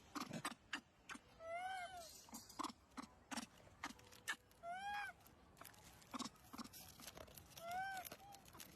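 Baby macaque giving short arched coo calls, each rising and falling in pitch, three times about three seconds apart, over many short clicks and crunches like chewing.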